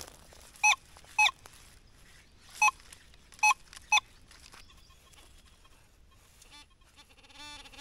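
Metal detector giving five short, loud beeps over a buried target, then a lower buzzing tone near the end; the target is iron.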